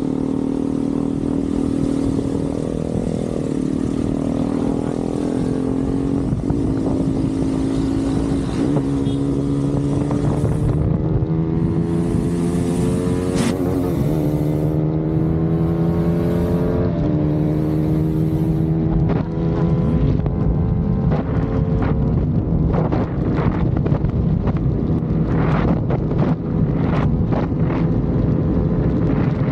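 KTM Duke 200's single-cylinder engine running at road speed, its note rising over the first half with a few brief dips and then holding steady. Short gusts of wind noise on the microphone come and go in the second half.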